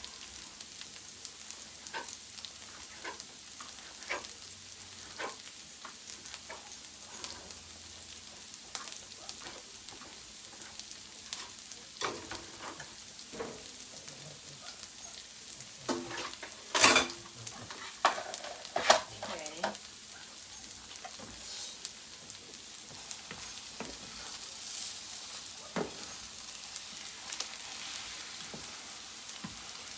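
Egg, vegetables and chopped steak frying in a pan with a steady sizzle, while a spatula cuts and stirs through it, tapping and scraping on the pan. The loudest knocks come in a cluster a little past the middle.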